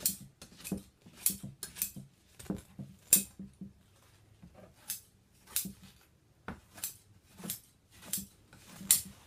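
Upholstery scissors snipping through bonded polyester batting: about fifteen short, crisp cuts at irregular intervals, some coming two in quick succession.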